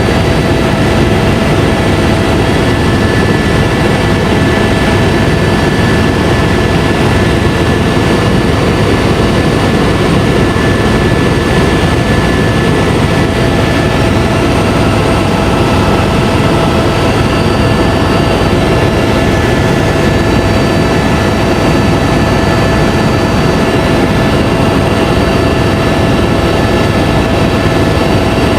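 Tour helicopter in flight, heard from the passenger cabin: a loud, steady drone of turbine and rotor with a constant whine.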